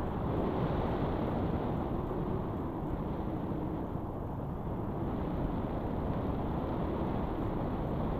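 Steady wind buffeting the microphone of a camera mounted on a paraglider in flight: a low, rough noise with no clear engine tone, dipping briefly about four seconds in.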